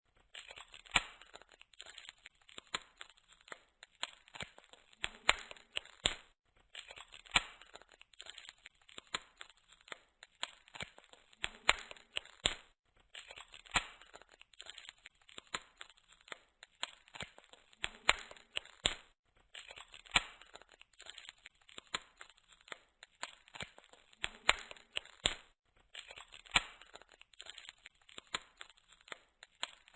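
Wood fire in a fireplace crackling, with irregular sharp pops over a faint hiss. The same stretch of crackling repeats about every six and a half seconds, as a looped recording.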